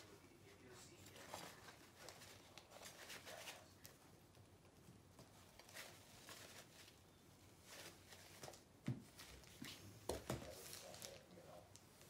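Near silence: faint, intermittent rustling, with a few soft knocks near the end.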